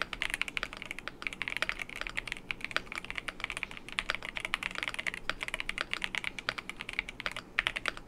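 Rapid typing on a Cidoo V75 75% mechanical keyboard, fully foamed inside with IXPE switch pad and Poron plate and case foam. Runs of quick keystrokes with brief pauses, stopping right at the end.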